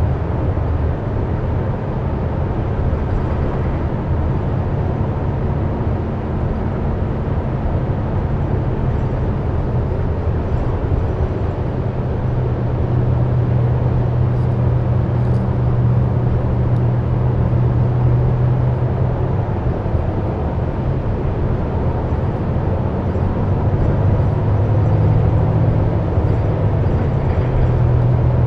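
Interior of a 2004 Gillig Advantage transit bus under way: steady engine drone with road and tyre noise. The low engine note grows stronger about halfway through and again near the end.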